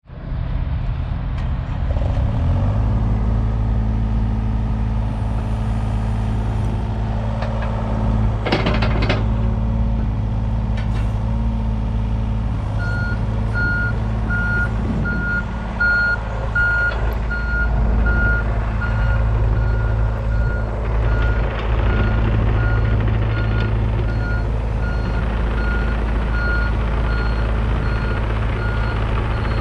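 John Deere 35G mini excavator's diesel engine running steadily, with a brief clatter about eight seconds in. From a little under halfway through, its alarm beeps over and over at a steady pace as the machine works and moves.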